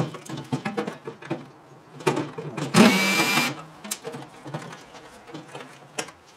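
Cordless drill running in short bursts with a steady whine, the longest about three seconds in, as it works screws in a microwave's casing. Light clicks and clatter of handling come between the bursts.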